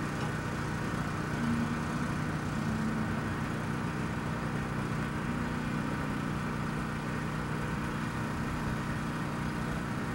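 An engine idling with a steady, even low hum.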